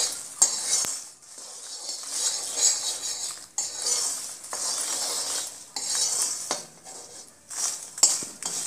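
Metal spoon scraping across a pan and stirring puffed lotus seeds (makhana) as they roast in ghee: repeated scraping strokes at about one a second, with a few sharp clinks of spoon on pan. The stirring keeps the seeds from burning while they roast to light brown.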